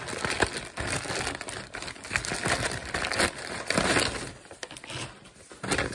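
Shipping package being cut open with a pocket knife and unwrapped: irregular crinkling, scraping and tearing of the packaging, thinning out near the end.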